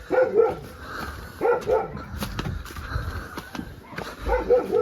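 A dog barking, in short barks that come in pairs, about three times.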